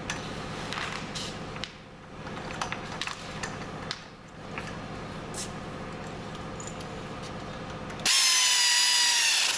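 Light clicks and rubbing as parts are fitted, then about eight seconds in a pneumatic air ratchet runs for a couple of seconds, a loud hiss with a whine that falls slightly in pitch.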